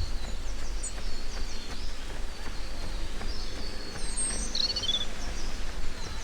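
Small songbirds chirping and twittering in short high calls, with a brighter warbling phrase about four and a half seconds in, over a steady low rumble.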